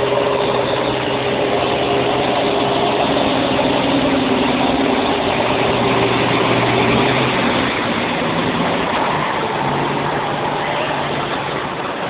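Case IH STX530 Quadtrac's Cummins 15-litre six-cylinder diesel running steadily as the tracked tractor drives past at close range, towing a disc cultivator. The engine note shifts slightly about eight seconds in.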